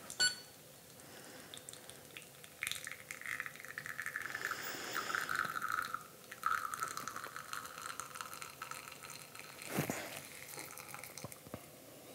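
Faint trickle of espresso from the Espresso Forge's bottomless 58 mm basket running into a glass as the shot is pulled, with a brief louder noise near the end.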